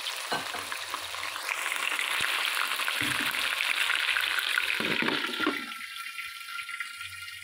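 Water poured into hot oil with frying onions in a wok, setting off a loud hissing sizzle and spatter with billowing steam. The sizzle builds for a few seconds, then drops off sharply about five and a half seconds in to a thinner, higher sizzle.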